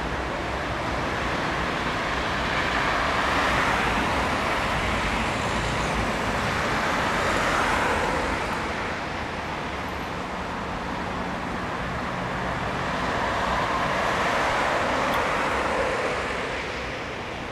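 City road traffic: cars driving past on a multi-lane street, a steady rush of tyre and engine noise that swells three times as vehicles go by.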